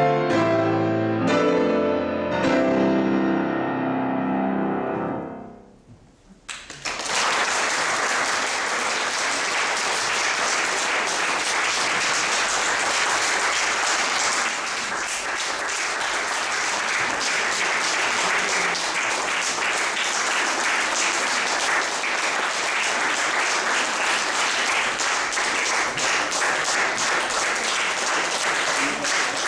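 Piano playing its closing notes and chords, which die away about five seconds in; after a brief hush, an audience applauds steadily.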